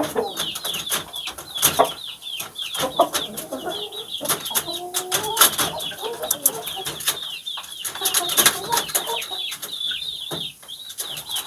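Chickens clucking, with a run of short, high, falling peeps throughout and many sharp scuffing clicks; a few lower calls come about five seconds in.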